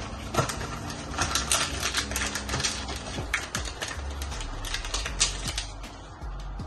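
A cardboard box of cocoa powder being tapped and shaken over a bowl to sprinkle the powder out: a quick, irregular run of light clicks and taps.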